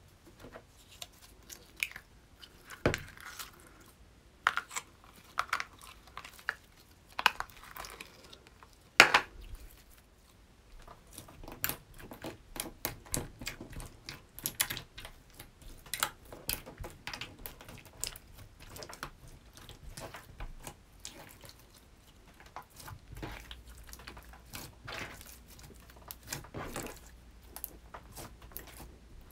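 Orange slime with soft mixed-in pieces being poked, pressed and kneaded by fingertips: a steady string of small sticky clicks, pops and crackles, with a few louder clicks in the first ten seconds.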